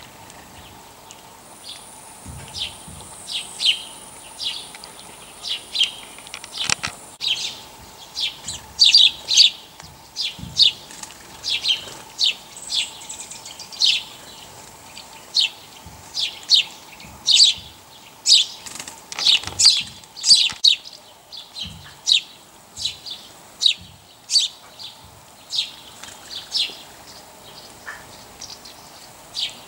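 A small bird chirping over and over: short, high chirps at an uneven pace of about one or two a second. A faint, thin, steady high whine sounds underneath for the first few seconds.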